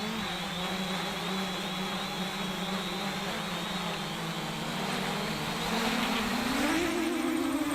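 Motors and propellers of a JJRC X1 quadcopter in flight, a steady hum that rises in pitch as the throttle increases about six seconds in, picked up by a camera mounted on the drone.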